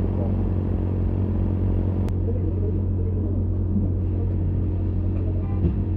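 A vehicle engine idling steadily: a low, even rumble that holds one pitch, with a single sharp click about two seconds in.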